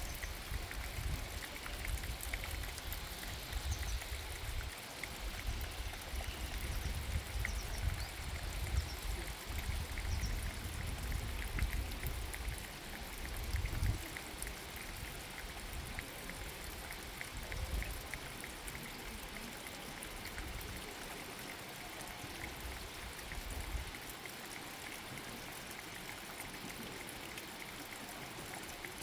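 Water dripping and trickling down stones: a steady patter of drops over a running trickle. A low rumble sits under it through the first half and dies away.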